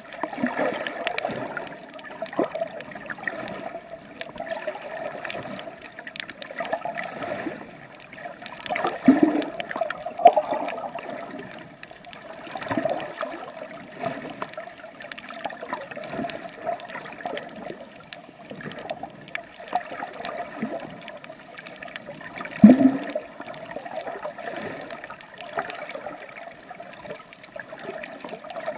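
Sea water gurgling and sloshing around a swimmer, with irregular surges and two louder gushes, about nine seconds in and again about twenty-three seconds in.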